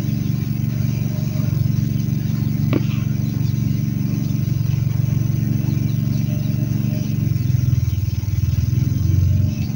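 An engine running steadily, a low even hum with no change in speed. A single short click about three seconds in.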